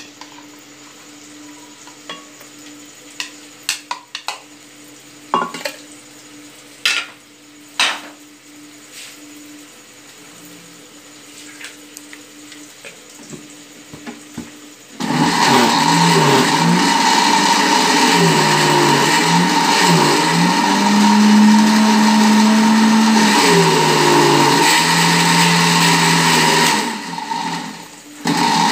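Electric blender puréeing boiled spinach. After a few light clicks and knocks, the motor starts about halfway through and runs loudly and steadily. It cuts out briefly near the end and starts again.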